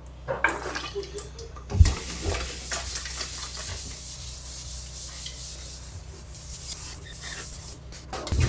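A cloth rubbing wood finish into a bare wooden countertop: a steady scratchy swishing. There is a sharp thump about two seconds in and another near the end, over a low steady hum.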